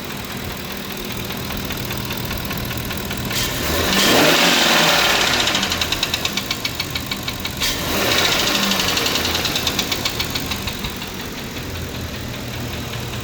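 Car engine idling and then revved twice, about three and a half seconds in and again about eight seconds in. As the revs fall back each time there is a fast, even knocking. This is the engine knock the recording is made to show.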